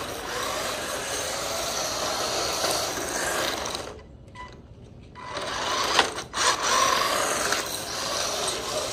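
SG1603 mini RC drift truck driving, its small electric motor and gears whining. The whine eases off for about a second near the middle, then picks up again, with a sharp tick about six seconds in.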